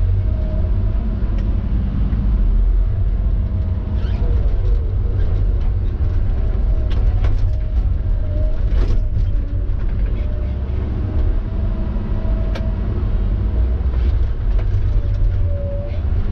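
Tigercat knuckleboom log loader's diesel engine running steadily, heard from inside its cab, with short whines coming and going as the boom and grapple work and a few sharp knocks.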